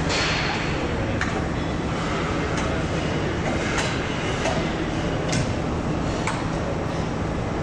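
Steady assembly-line machinery noise with a low hum, and a few short, sharp metallic clicks and taps scattered through it.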